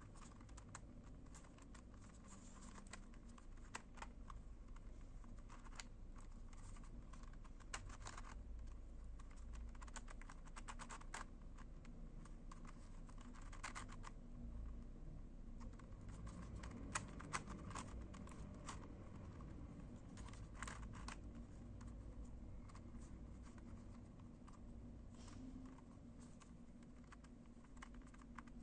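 Skewb-type twisty puzzle being turned by hand: faint, irregular clicks and light scraping as its pieces slide and snap past each other during a series of turns.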